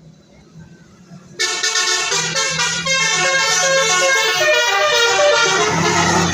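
Basuri telolet multi-tone bus horn cutting in suddenly about a second and a half in and playing a quick melody of loud stepping horn notes. Before it there is only a low steady hum.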